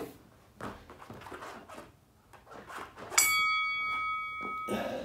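A bell-like chime of several ringing tones starts suddenly about three seconds in, holds for about a second and a half, then stops abruptly. Before it there are only faint, soft movement sounds.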